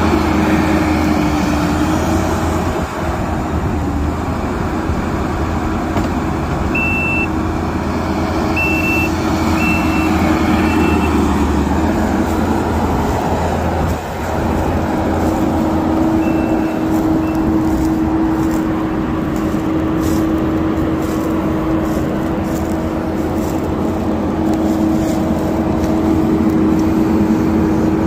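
Kubota compact track loader's diesel engine running steadily close by. A few short, high backup-alarm beeps sound about a quarter of the way in, with a fainter couple a little later.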